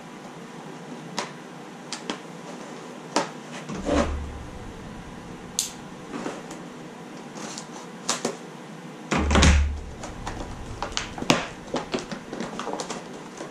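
Product packaging being handled and pulled open: scattered crinkles and clicks, with two heavier thumps about four and nine seconds in.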